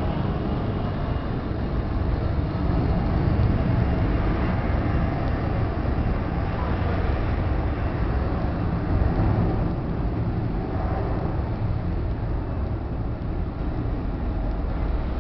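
Steady, even rumbling roar of a rear-engined regional jet's engines as it rolls along the runway, heard across the airfield.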